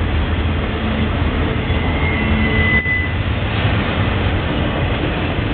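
Intermodal freight train of flatcars carrying trailers and containers rolling past, its steel wheels on the rails making a steady rumble. A faint high squeal comes in briefly about two seconds in.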